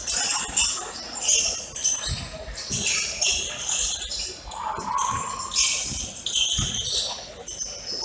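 Basketball dribbled on a hardwood gym floor, a few low thumps, amid sneaker squeaks and the chatter of a gym during play.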